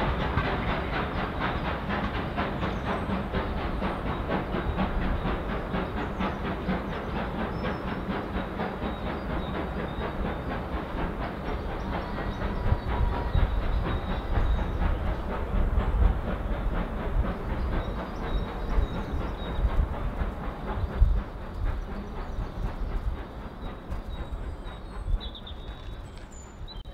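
Passenger train running away down the line, its wheels clattering over the rail joints and pointwork in a dense run of clicks, the sound dying away near the end.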